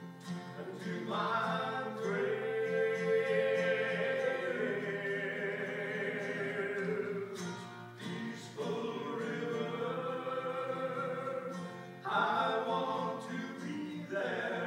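Slow song sung to acoustic guitar, the voices holding long notes in phrases with short breaks between them, in a reverberant church.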